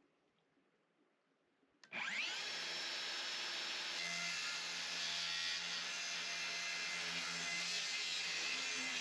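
Circular saw starting about two seconds in, its whine rising as the blade spins up, then running steadily as it rips a sheet of plywood.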